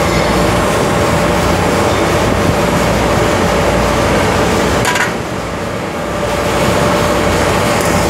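Loud, steady rushing hum of a large caged shop fan, dipping for about a second around five seconds in. A light metallic clink comes just before the dip.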